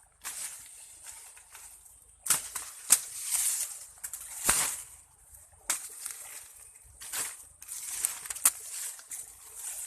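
Rustling and swishing of corn leaves and husks, broken by sharp snaps every second or so, typical of ears of corn being broken off the stalks by hand.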